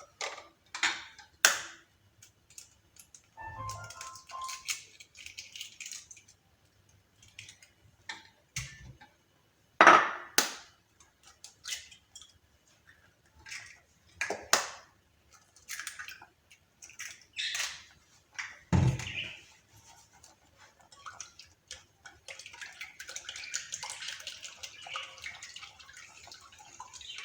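Eggs being cracked into a bowl and kitchen utensils knocking and clinking against bowls, scattered single knocks. Near the end a faint steady hiss comes in.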